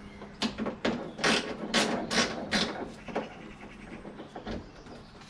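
Footsteps: about six evenly spaced steps at walking pace, a little over two a second, followed by a couple of fainter ones.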